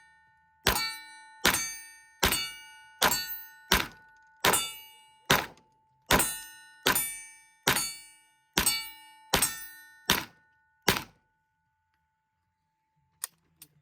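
A rapid string of about fourteen gunshots, roughly one every three-quarters of a second, each with a steel target ringing on a steady metallic tone. The shooting stops near the end, leaving two faint clicks.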